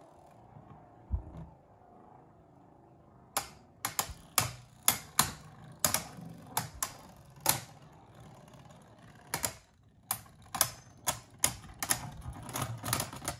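Beyblade Burst spinning tops, one of them Union Achilles A5, clashing against each other and the plastic stadium wall: a run of sharp, irregular clicks starting about three seconds in, with a brief pause near ten seconds.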